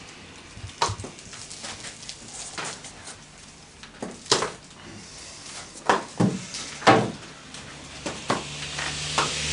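Chestnut wood being split by hand into laths: a string of irregular sharp cracks and knocks, loudest between about four and seven seconds in.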